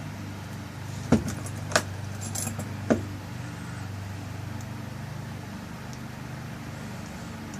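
Small metal lock parts clicking and clinking as the tailpiece is screwed back onto a rekeyed lock cylinder: three sharp clicks in the first three seconds with lighter ticks between. A steady low hum runs underneath.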